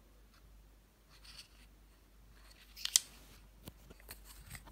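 A few light clicks and clatters of plastic lipstick tubes being handled and knocked together while rummaging in a wicker basket of lipsticks. The sharpest click comes about three seconds in.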